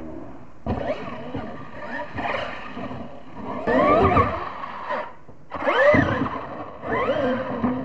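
An RC monster truck's motor whining as it is throttled hard, its pitch sweeping up and down. The loudest surges come about halfway through and again near six seconds, after two short breaks when the throttle is let off.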